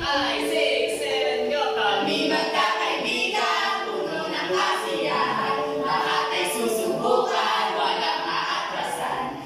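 A song sung by several voices together, with long held notes.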